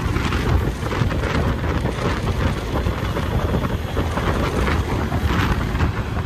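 A vehicle engine running, with wind buffeting the microphone in an uneven, gusty rumble.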